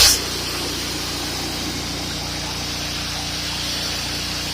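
Gas-engine pressure washer running steadily, its engine hum under the hiss of the water spray; a louder rush of noise drops away just after the start.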